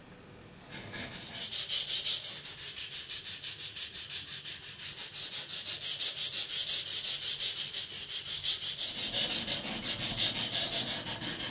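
Buck knife blade stroked rapidly back and forth on a wet 220-grit green silicon carbide waterstone: a rhythmic gritty scraping at about four strokes a second, starting about half a second in.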